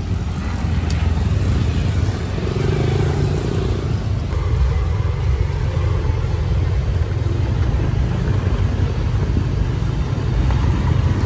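Busy city street traffic: motorbikes, tuk-tuks and cars running past, heard as a steady low rumble. The background changes abruptly about four seconds in.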